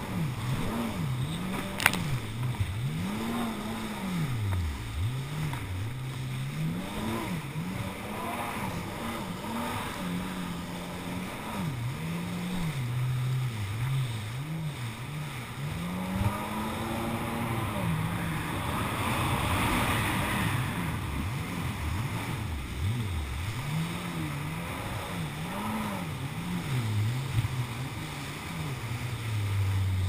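Kawasaki jet ski engine running hard across open ocean swell, its pitch rising and falling again and again as the throttle is worked over the waves. Rushing water and spray run under it, and there is a single sharp knock about two seconds in.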